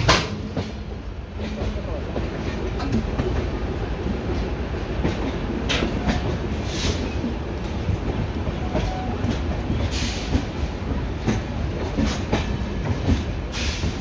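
Passenger train coaches running along the track: a steady rumble with irregular clacks of the wheels over rail joints, and one sharp knock right at the start.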